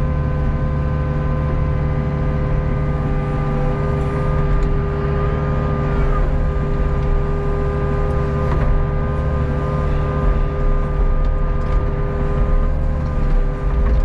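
Hitachi ZX48U mini excavator's diesel engine running steadily, with a constant hydraulic whine, as the machine swings its upper body and works the boom and arm. Heard from the operator's seat.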